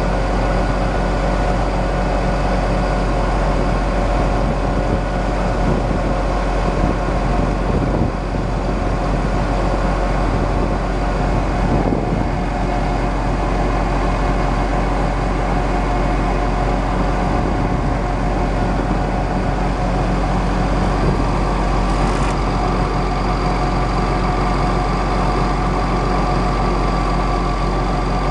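International DT466 7.6 L turbo diesel running steadily with the PTO driving the hydraulic pump for the IMT 5020 crane, a steady whine over the engine's low rumble.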